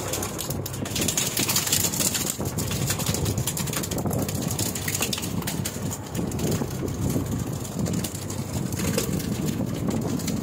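Fishing boat's engine running steadily, with wind buffeting the microphone and a few light knocks.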